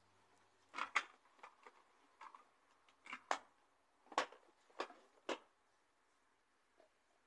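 A handful of faint, separate clicks and knocks, some in quick pairs, as a small jar is picked up and handled on a tabletop.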